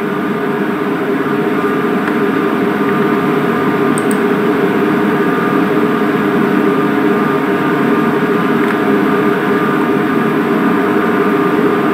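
Steady machine hum: an even noise with several steady tones held throughout, with no rhythm and no change.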